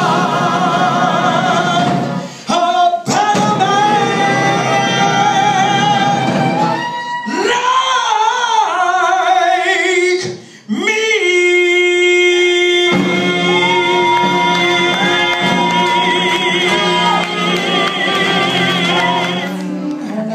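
A trad jazz band of trumpet, clarinet, guitar, drums and upright bass playing live, with a lead line of long held, wavering notes that slide between pitches over the band. The music drops out briefly twice, about two and a half and ten seconds in.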